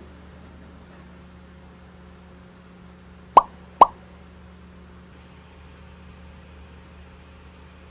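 Two sharp pops, under half a second apart, as the snug lid of a rigid cardboard gift box is pulled off, over a low steady hum.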